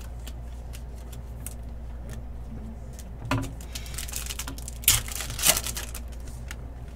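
Trading cards being handled and stacked on a table: light clicks and taps, with louder rustling clatters of cards about three and five seconds in.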